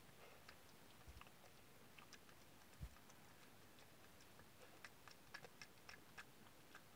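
Faint, wet clicks of an American badger chewing a banana: a few scattered clicks at first, then a quicker run of them in the second half. A soft low thump about three seconds in.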